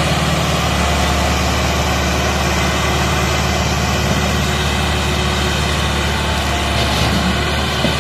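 Massey Ferguson 385 tractor's diesel engine running steadily under load as it pulls a trolley heaped with soil.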